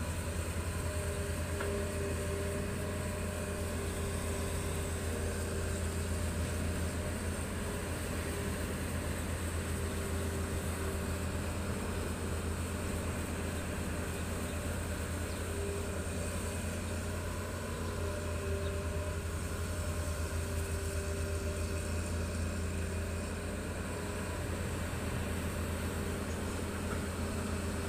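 Hitachi ZX200 hydraulic excavator's diesel engine running steadily as it works its arm, a low drone with a higher tone that comes and goes every few seconds.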